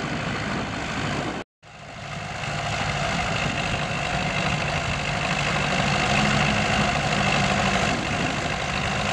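1963 Aktiv combine's diesel engine running steadily as the combine creeps out of soft ground. The sound cuts out completely for a moment about a second and a half in, then fades back up and carries on steadily.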